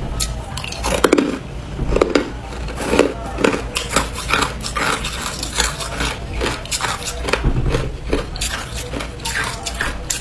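Crushed ice being bitten and chewed, a run of irregular crisp crunches, several a second at their thickest.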